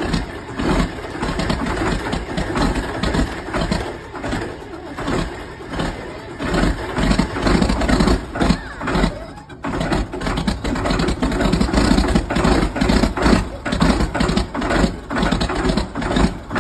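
Volvo tractor engine being cranked over by the starter in −15 °C cold, struggling to start: a rhythmic chugging with a brief break about nine and a half seconds in.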